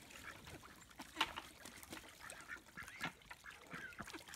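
Ducks giving short, repeated quacking calls while paddling in a small water-filled pool, with a single sharp knock about a second in.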